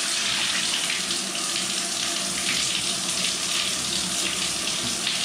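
Grohe Euphoria SmartControl hand shower running on its pulsating massage spray, water jetting steadily onto the bottom of an empty bathtub.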